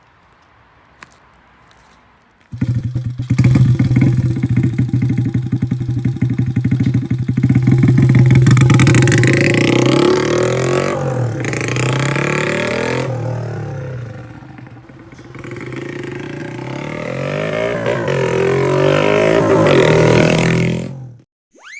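Custom Honda Monkey mini-bike's engine running loud through a Pretty Racing CB400F-style muffler. It comes in suddenly about two and a half seconds in, rises and falls with the throttle, and cuts off abruptly near the end.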